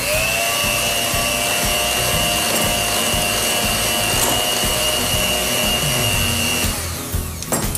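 Electric hand mixer running at a steady speed, its beaters creaming butter, sugar and egg in a glass bowl. The motor's whine comes up to a steady pitch at once, runs evenly, and cuts off about a second before the end.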